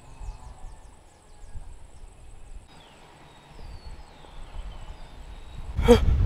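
Quiet outdoor ambience: faint bird chirps falling in pitch and a few gliding calls, over a thin steady high insect whine. Near the end, a short loud burst of a person's voice.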